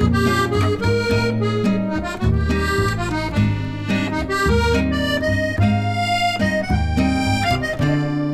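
Instrumental background music: a reedy melody line over chords, with notes changing quickly and steadily.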